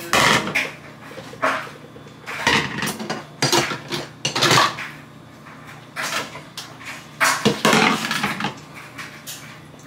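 Kitchen clatter: plastic bowls knocked together and set down on a counter, with cupboard-type knocks, in several short bursts.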